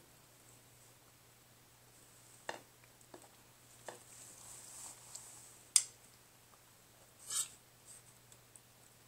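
A metal spoon clinking and scraping in a bowl: a few sharp clinks spaced about a second apart, the loudest just past halfway, then a short longer scrape.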